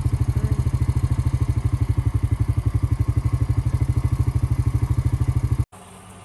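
Tractor engine running steadily with a rapid, even pulse. It cuts off abruptly near the end, leaving a much quieter steady background.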